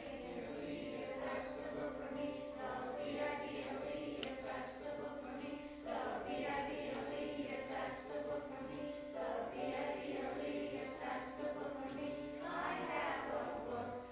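Children's choir singing a song together in unison, over steady held notes underneath.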